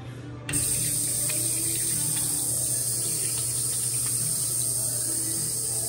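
Touchless sensor faucet switching on about half a second in and running a steady stream of water over a hand into the sink basin.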